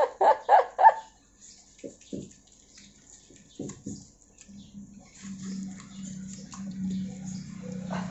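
Water running steadily from a garden hose, starting about halfway through, as lather is about to be rinsed off.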